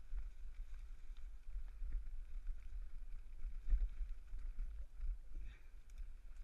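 Bicycle riding over a rough dirt footpath: a steady low rumble of wind and vibration on the microphone, with scattered knocks and rattles from bumps in the path.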